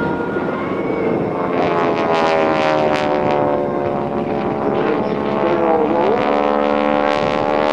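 North American T-6 Texan's Pratt & Whitney R-1340 radial engine and propeller during an aerobatic manoeuvre. The engine note dips slightly in pitch and then climbs again.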